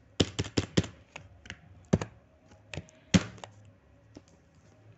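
Computer keyboard keystrokes: a quick run of about five keypresses near the start, then a few scattered ones, the loudest a little after three seconds in.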